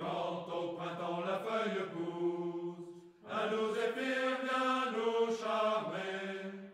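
Background music: a singing voice holding long, steady notes in two phrases, with a short break about three seconds in.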